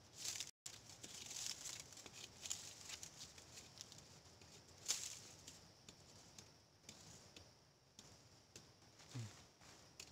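Faint, scattered rustling and crackling of dry leaf litter and twigs, with one sharper crackle about five seconds in.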